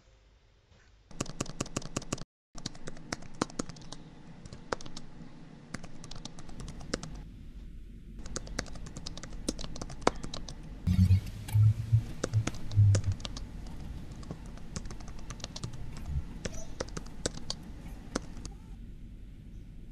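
Typing on a laptop keyboard: quick key clicks in irregular runs, broken by a brief dead silence about two seconds in, with a few low thuds a little past the middle.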